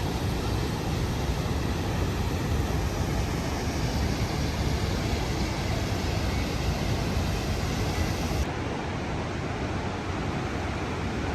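Steady rushing water of the Rhine Falls, a dense even noise. About eight seconds in, it abruptly becomes duller and a little quieter.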